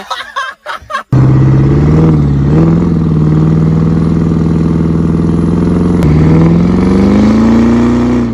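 Diesel truck engine running hard under load, its exhaust blowing black smoke. It comes in abruptly about a second in as a steady loud drone, then climbs in pitch near the end as it revs higher.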